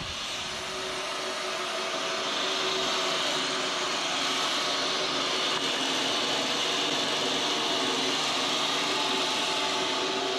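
Corroded GTD-350 turboshaft engine from a Mi-2 helicopter running steadily: a loud hiss with several held tones, growing a little louder about two seconds in.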